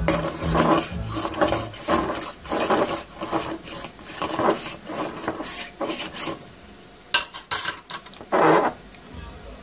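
Irregular clinks, taps and scrapes of a plastic canning tool against a stainless steel funnel and glass jar as peeled tomatoes are pushed down into the jar, thinning out after about six seconds to a few sharp clicks.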